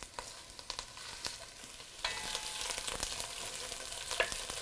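Chopped onion, carrot and celery sizzling in olive oil in an enamelled pot, with clicks and scrapes from a wooden spoon stirring them. The sizzle grows louder about two seconds in.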